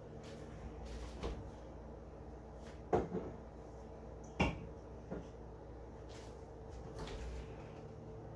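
Items and containers being moved around in a refrigerator: several knocks and clunks, the loudest a double knock about three seconds in and another about a second and a half later, over a steady low hum.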